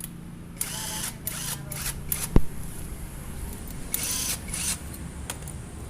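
Tool work on a Yamaha Mio Soul scooter engine being stripped down: several short rasping bursts, with a sharp click about two and a half seconds in as the loudest sound, over a steady low hum.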